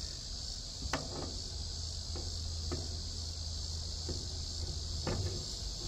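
Steady high-pitched chirring of crickets over a low steady hum, with a few light clicks of a Hilliard Bully drum clutch being handled and slid onto a kart engine's crankshaft.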